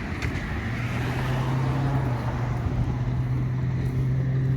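A steady low engine hum sets in about half a second in and holds steady, over a background of road traffic noise.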